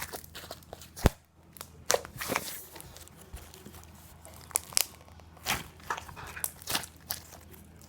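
Crunchy slime being squeezed and worked by hand, giving irregular crackles and pops; the sharpest pop comes about a second in.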